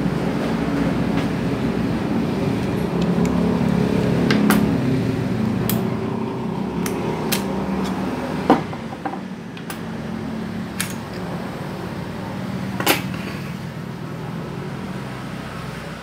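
Metal parts of a Yale doorknob lock clicking and tapping as it is taken apart by hand with a screwdriver, about eight sharp clicks, the loudest about halfway through and again near the end, over a steady low background rumble.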